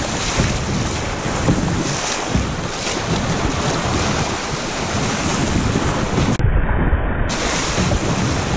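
Rushing whitewater splashing around a kayak as it runs a chute on a high, fast river, with wind buffeting the microphone.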